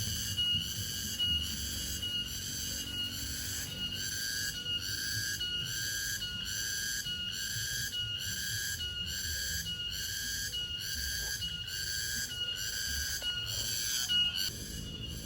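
Wild cricket chirping in a steady rhythm, a little more than one long chirp a second, each a shrill ringing note.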